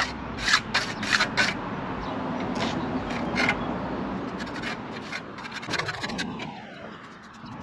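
A hand tool rubbing and scraping over a freshly placed concrete curb patch in short, irregular strokes as the surface is smoothed. The strokes come in a quick run in the first few seconds, then thin out.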